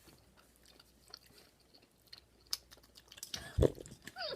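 A person chewing a soft sweet, with scattered small wet mouth clicks. About three and a half seconds in there is a louder short low sound, a brief murmur or bump.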